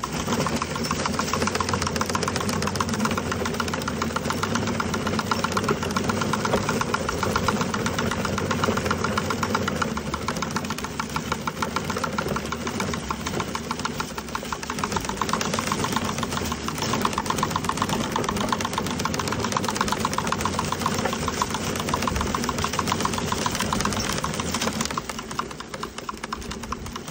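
Gardena push leaf collector rolling over a lawn, its wheel-driven brush roller spinning with a fast, steady rattle as it sweeps wet leaves into the basket.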